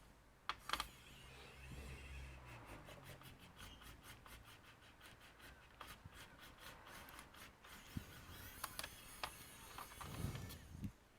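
Faint handling of laptop parts during disassembly: small plastic clicks and rubbing, with a run of quick, even ticks lasting several seconds, about five a second.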